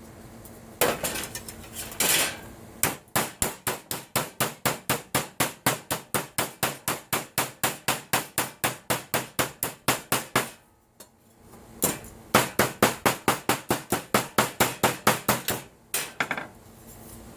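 Hammer tapping an aluminum brace in rapid, even strikes, about five a second, in two long runs split by a pause of about a second, after a couple of single knocks.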